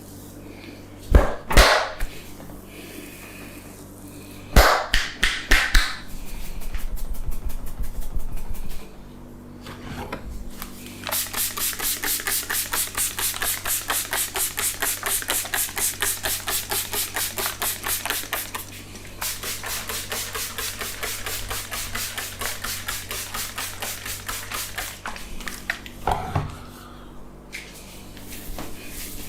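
Hands striking rhythmically during a barber's head massage: fast, even slaps and chops at about four a second, with a few louder single smacks before the runs.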